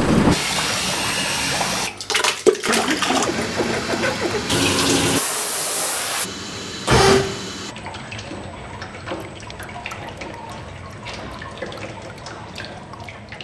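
Water sounds of hand papermaking: a rushing churn of wet pulp in a beater that cuts off about two seconds in, a hiss of water spray over a stack of wet paper sheets around five seconds in, and a brief louder burst near seven seconds. After that, a quieter patter of water dripping from a wet sheet.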